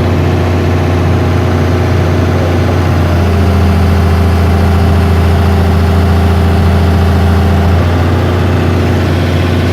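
Heavy machine's engine running steadily at a low speed. About three seconds in, its pitch steps up to a higher engine speed, which holds for several seconds before dropping back near the end.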